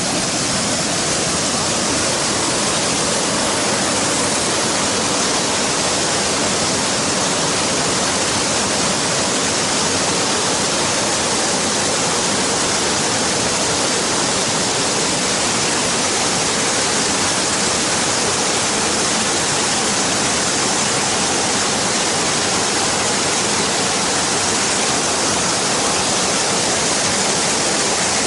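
Waterfall pouring down in a loud, steady, unbroken rush of water.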